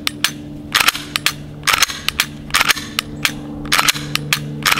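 A string of 9mm-class Glock pistol shots at a steady pace, each a sharp crack followed by a short echo. The pistol is fired one-handed, the trigger finger riding the trigger out to its reset between shots.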